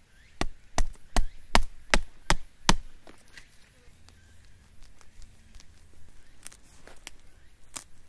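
A quick series of seven sharp knocks, about two and a half a second, each ending abruptly, followed by a few faint clicks and rustles.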